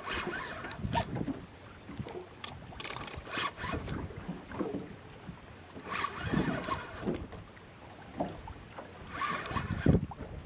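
Water slapping and lapping against the hull of a small fishing boat at anchor, in irregular splashes, with one sharper knock near the end.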